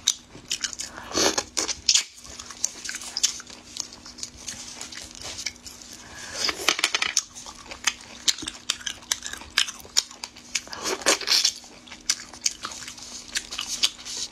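Close-up mouth sounds of eating Babylon sea snails: chewing and smacking with many small sharp clicks, and three louder noisy bursts spread through.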